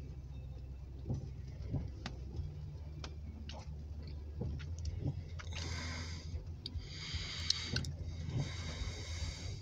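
Raindrops ticking on a car's windshield and roof over the steady low hum of the idling car, with the windshield wipers swishing across the wet glass a few times in the second half.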